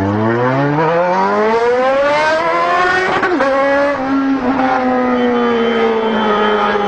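Motorcycle engine heard from the rider's seat, climbing steadily in pitch as it accelerates for the first three seconds. After a brief dip it runs at a steadier, slowly falling pitch.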